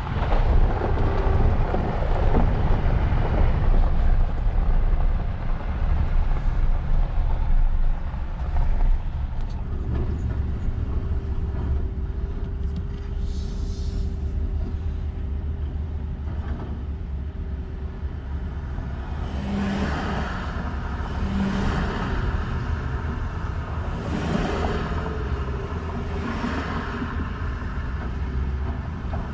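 Steady low rumble of a running motor vehicle, with louder swells of noise in the second half.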